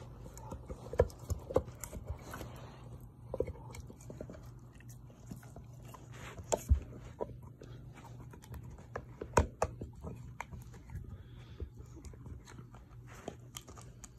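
Pit bull chewing and gnawing a hard chew toy: irregular clicks and knocks of teeth on the toy, a few of them much louder, over a steady low hum.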